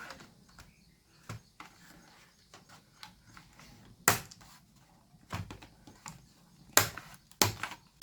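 Plastic casing of a Dell Latitude E6430 laptop being pried and unclipped: a scattered series of sharp clicks and snaps, the loudest about four seconds in and again near the end.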